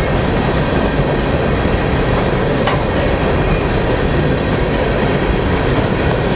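Freight train of covered hopper cars rolling past at a steady speed, a continuous rumble of steel wheels on rail, with one sharp clack nearly three seconds in.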